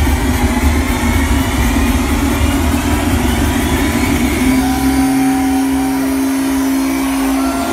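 Loud electronic dance music playing over a concert sound system. The heavy bass drops out about halfway through, leaving a held synth tone with short gliding notes above it.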